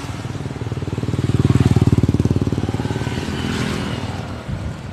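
Motorcycle engine passing close by, its pulsing exhaust note growing louder to a peak about two seconds in, then fading away.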